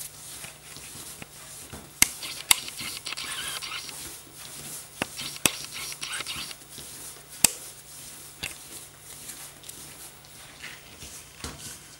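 Hands kneading and punching down a soft yogurt-based dough on a floured table: steady rustling and scraping, with about five sharp slaps or taps, two in quick succession twice and one more in the middle. It is the final kneading of the dough into a ball before it rests.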